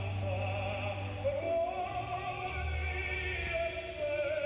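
Operatic music: a singing voice holds long notes with a wavering vibrato over a steady low bass accompaniment.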